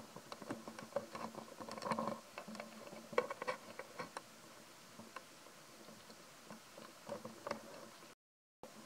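Irregular light crunching, ticking and rustling of footsteps on dry leaves and grass. It is busiest in the first few seconds and drops out abruptly for a moment near the end.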